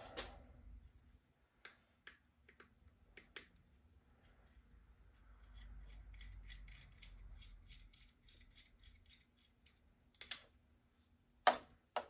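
Small plastic-and-metal handlebar mount of a USB charger plug being handled and worked by hand: scattered light clicks, then a run of quick clicks about four a second in the middle, and two louder clicks near the end.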